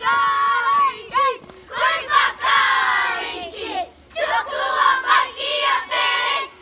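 A large group of children singing together in unison, in short loud phrases with brief breaks between them.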